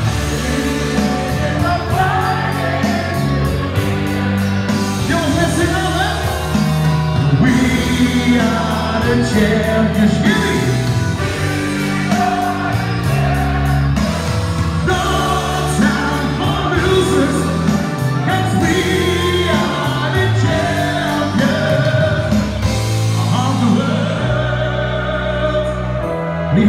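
A singer performing a song live over instrumental backing music, with long held sung notes.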